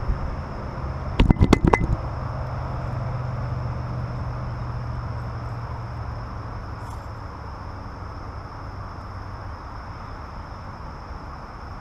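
A quick cluster of knocks and clatter from the camera being handled and set down, followed by a steady low rumble that slowly fades away over several seconds.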